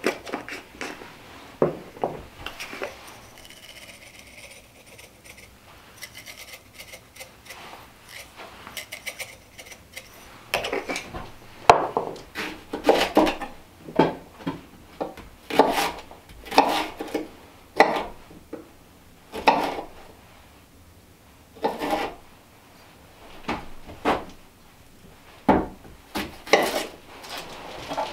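Kitchen knife cutting food on a wooden table, a series of uneven rasping slicing strokes about one a second, starting about ten seconds in; before that only a few light knocks.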